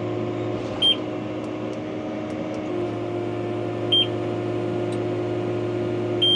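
New Holland T6155's four-cylinder engine running steadily, heard from inside the tractor cab. Two short, high electronic beeps sound about one and four seconds in, and a longer beep starts near the end.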